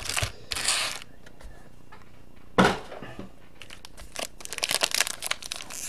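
Foil-wrapped trading-card packs crinkling and rustling as they are handled: a rustle about half a second in, a sharper crinkle near the middle, then quick rapid crinkles toward the end.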